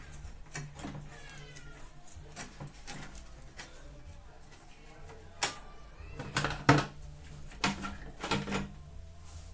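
Sharp clicks and knocks from hands working on parts and wiring, bunched together in the second half, over a low steady hum, with faint voices in the background early on.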